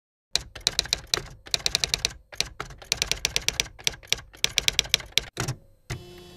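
Typewriter keys clacking in quick runs of strokes with short pauses between them. About six seconds in, the clacking stops and a steady held tone begins.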